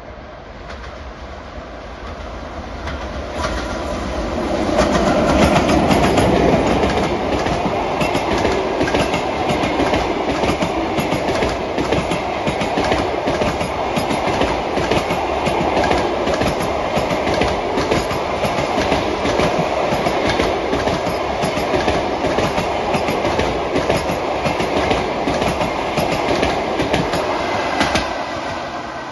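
Passenger train hauled by a ChS2T electric locomotive passing close by. The noise swells over the first few seconds and peaks as the locomotive goes by. It then holds as the steady noise of the coaches with wheels clacking over the rails, and drops off near the end as the last coach passes.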